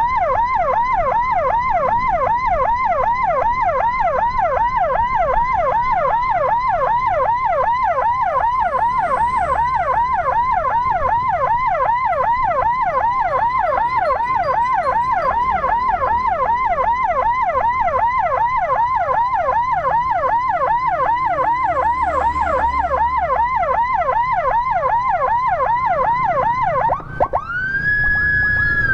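Electronic emergency siren sounding a fast yelp, sweeping up and down in pitch several times a second. Near the end it cuts off briefly and switches to a wail that rises, holds, then begins to fall.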